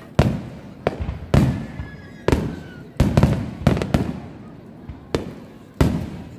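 Aerial fireworks shells bursting overhead: about ten sharp booms in quick, irregular succession, each trailing off in a low rolling rumble.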